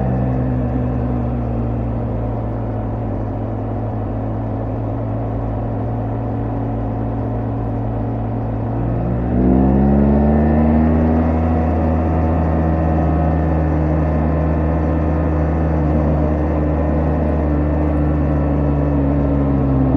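BMW R1250GS Adventure's boxer-twin engine and exhaust running on the move, holding a steady note at first. About nine seconds in, the pitch rises quickly and the sound gets louder as the bike accelerates, then it settles into a steady cruise.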